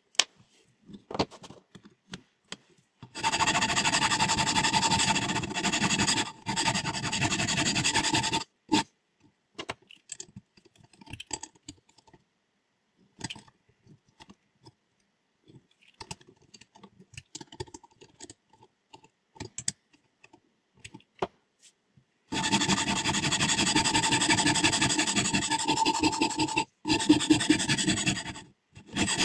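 Sharpening stone drawn along a steel scissor blade in a guided sharpening system: sustained scraping strokes with a ringing metallic tone, in two runs starting about 3 s and 22 s in. Between the runs come light clicks and taps of handling.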